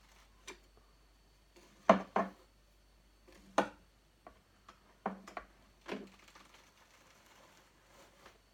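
Sharp, irregular knocks and clicks of a thin doffer rod striking a drum carder's large carding drum as the carded wool is lifted off it. The loudest pair comes about two seconds in, followed by a handful more over the next four seconds.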